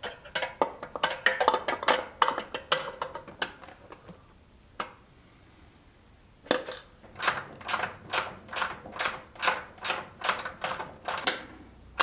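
Ratchet wrench clicking as the moped's seat bracket is tightened down: quick irregular clicks at first, then, after a short pause, a steady run of about three clicks a second.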